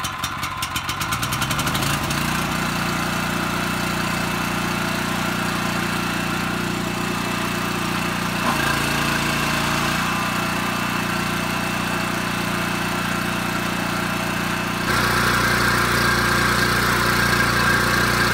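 Small portable generator engine started on choke: it runs unevenly for the first couple of seconds, then settles into a steady run. It gets louder about fifteen seconds in.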